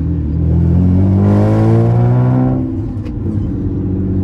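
Nissan Maxima's 3.5-litre V6 accelerating under load, heard from inside the cabin: the revs rise for about two and a half seconds, drop at an upshift of the six-speed manual about three seconds in, and then hold steady. It runs through the stock exhaust, which has a hole in it blown by flames and pops.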